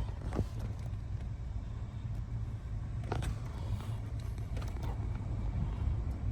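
Steady low rumble, with a brief click about half a second in and another about three seconds in.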